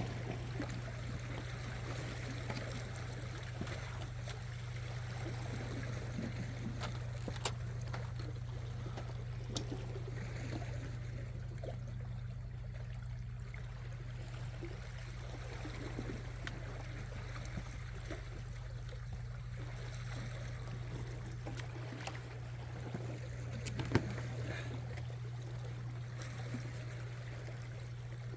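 Sea water lapping and trickling among shore rocks, over a steady low hum, with a few sharp clicks, the loudest about 24 seconds in.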